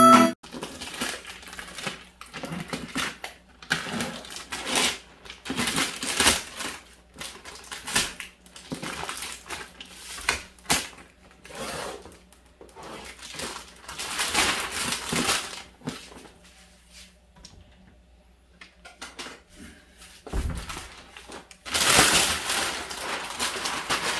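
Plastic mailer bag rustling and crinkling in irregular bursts as a boxed baby bouncer is handled and pulled out of it, loudest near the end.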